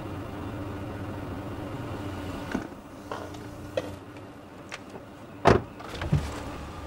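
Car engine idling with a steady low hum while a passenger gets out: a few small clicks of the door handle and latch, then a loud door thump about five and a half seconds in, with a smaller knock just after.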